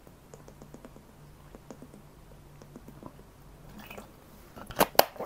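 Drinking from a large plastic water bottle: faint swallowing and small clicks of the bottle, then a few sharp plastic clicks and knocks near the end as the bottle is lowered.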